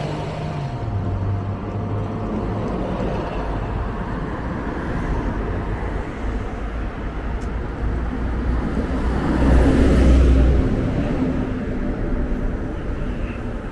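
Street traffic: a steady rumble of passing cars, swelling as a louder vehicle goes by about nine to ten seconds in.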